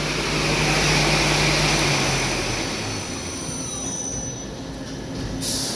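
Daewoo Puma CNC lathe machining: the spindle runs with a loud hiss and a thin high-pitched whine over a steady hum. The sound eases off after about three seconds, the hum dropping slightly as the spindle slows. A short, sharp hiss comes near the end.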